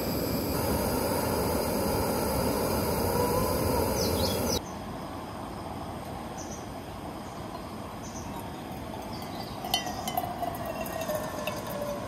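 Wind rustling through the trees with a couple of short bird chirps. Then, after a cut, a quieter trickle of hot water poured from a kettle onto a drip coffee bag in a metal mug, with a few light clinks near the end as the mug fills.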